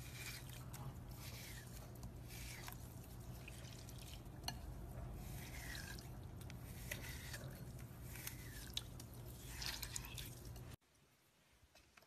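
Hands squeezing and crumbling glitter-coated green floral foam, a run of soft crackles and squishes over a steady low hum. It cuts off suddenly about eleven seconds in, leaving only faint room sound.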